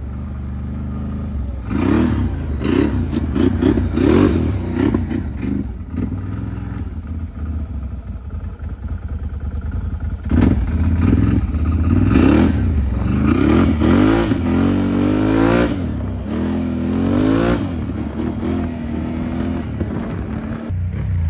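2019 Can-Am Renegade XXC 1000 ATV's Rotax V-twin engine revving up and easing off several times as the quad accelerates on a test ride. It is running smoothly with no stalling.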